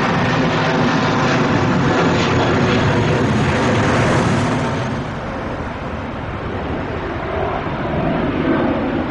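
Boeing 747-8F freighter's four GEnx-2B turbofans running at taxi power, a steady rushing jet noise with a faint whine. It turns quieter and lower about five seconds in.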